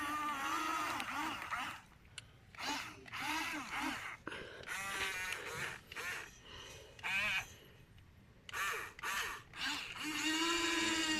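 Wordless vocal noises from a child, in short bursts of squeals and silly sounds. About ten seconds in, the toy excavator's small electric motor starts a steady whine.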